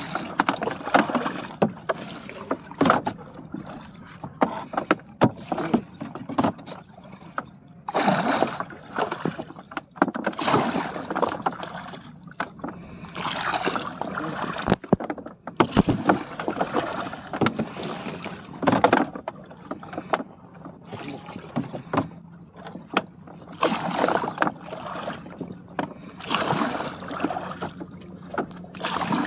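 Bamboo oar rowing a small wooden boat: a splash and swish of water with each stroke, every two to three seconds, with knocks of the oar against the boat and a steady low hum underneath.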